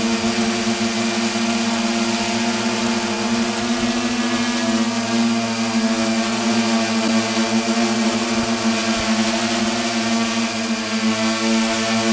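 Quadcopter drone's electric motors and propellers humming steadily in flight, one held pitch with several overtones, picked up close by the drone's onboard camera.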